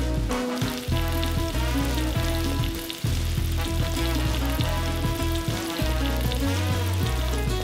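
Breaded crappie fillets shallow-frying in grapeseed oil in a cast iron skillet, a steady sizzle, with background music underneath.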